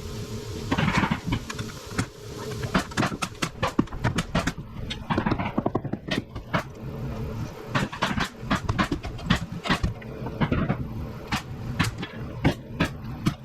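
Construction work on a jobsite: many sharp knocks and clacks, several a second and irregular, over a steady low background.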